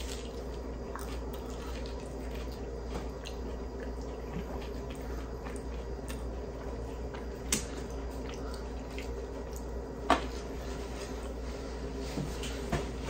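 Two people chewing thin-crust pizza, with a few soft mouth and handling clicks, two of them sharper, a little past halfway and about three quarters in. A steady low hum lies underneath.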